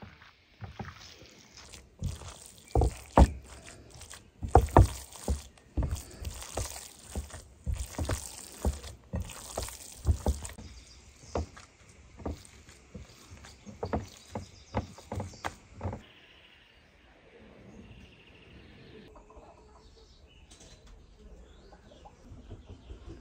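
Hands kneading and squeezing a wet mass of minced lamb on a plate: irregular squelching and slapping squishes. About 16 s in this stops, giving way to a quiet background with faint calls from chickens and ducks.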